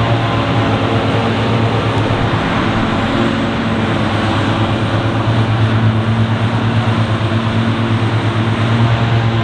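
Diesel engines of heavy farm machinery running steadily at work, a constant pitched engine hum over a steady noise.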